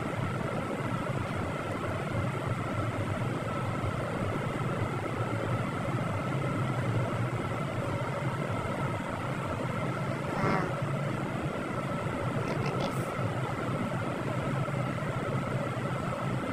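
Steady road traffic noise from a busy street, with a constant high hum running under it. A brief knock sounds about ten and a half seconds in, followed by a few light ticks.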